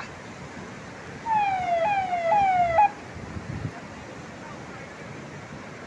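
A siren sounding three quick falling sweeps, each dropping in pitch and jumping back up, for about a second and a half, over a steady rush of wind and rain.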